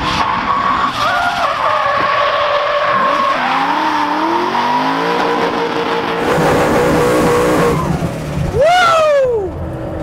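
Supercharged Ford Mustang RTR drift car drifting, its engine revs climbing and dropping over the hiss and squeal of sliding tyres. Near the end comes a sharp rev rise and fall, the loudest moment.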